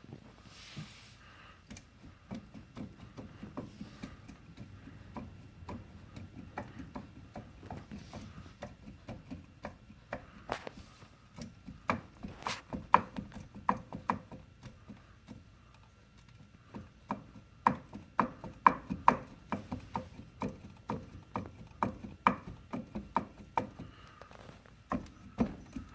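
Irregular runs of clunks and clicks from play in the worn wheel bearings and suspension bushings of a 2011 Polaris Sportsman 500 H.O. ATV. The knocking is loudest and quickest in a stretch around the middle and again in the latter part.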